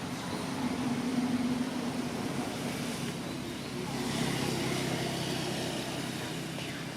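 Steady engine hum of a motor vehicle running nearby, with a low drone and a wash of road noise.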